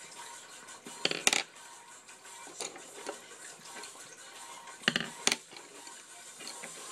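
A small piece of paper being folded and pressed flat by fingertips on a wooden table: two clusters of sharp, short paper rustles and clicks, about a second in and again about five seconds in, over faint background music.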